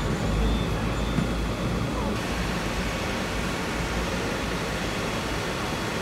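Steady running noise of a Hong Kong double-decker electric tram in motion, a continuous low rumble with street traffic around it.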